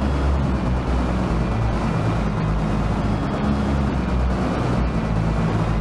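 Loud, low rumbling drone with several steady low tones under a hiss, holding even throughout: an eerie electronic sound-effect loop.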